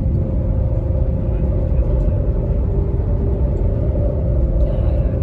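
Train running, a steady low rumble with a faint steady hum above it.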